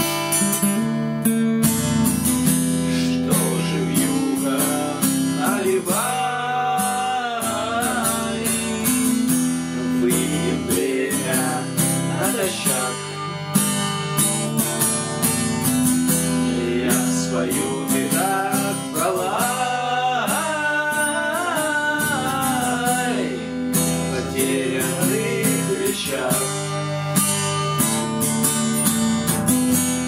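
Acoustic guitar strummed in a steady rhythm. Twice a wordless voice carries a wavering melody over it.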